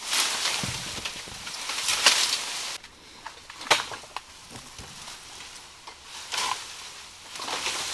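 Footsteps crunching and rustling through dry bamboo leaves and stalks, with a sharp crack a little under four seconds in.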